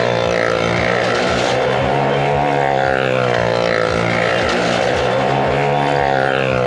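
Motorcycle engine held at steady revs as it circles the vertical wooden wall of a well of death. Its pitch swells up and down about every second and a half as it laps past.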